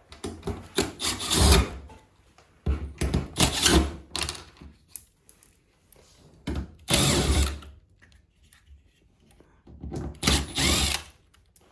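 Power drill-driver run in four short bursts of about a second or so each, backing out the screws that hold a panel and fan on an appliance.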